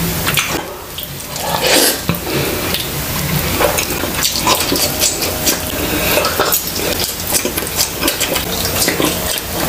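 Close-miked eating sounds: wet chewing and lip smacking, with many irregular sharp wet clicks, as baked tilapia and cheesy chile relleno are bitten and chewed.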